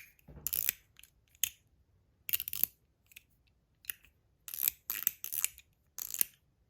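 Small titanium spinning-top fidget being handled and played with: a string of short, irregular, sharp scrapes and clicks, several in each second or two.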